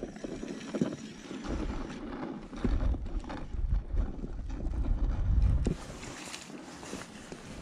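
Wind buffeting the microphone on open ice: a low rumble in gusts from about a second and a half in that stops abruptly near six seconds, leaving a lighter hiss with a few faint clicks.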